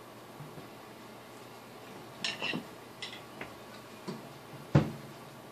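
Drumsticks striking a drum kit in a few scattered, irregular strokes: light, bright hits from about two seconds in, and one louder, fuller drum hit near the end.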